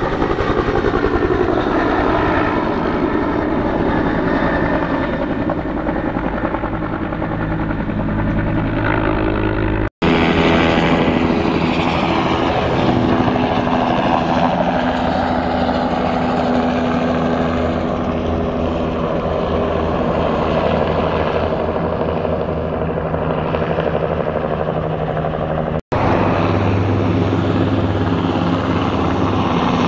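Three helicopters flying low overhead one after another, their rotor blades and turbine engines running steadily. The first is a two-bladed Bell medium helicopter of the Huey family and the second a small two-bladed Bell 206-type. The sound cuts off abruptly twice, about ten seconds in and near the end, as each aircraft gives way to the next.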